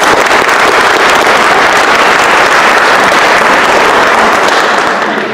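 Audience applauding, loud and steady, fading away near the end.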